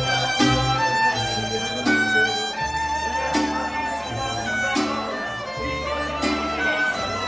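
Live mariachi band playing, with two violins carrying the melody over strummed guitars and a deep bass line.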